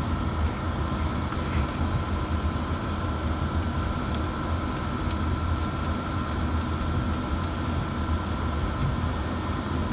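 Jet airliner's engines running, heard inside the passenger cabin as the plane rolls slowly on the ground: a steady low rumble with a steady high whine over it.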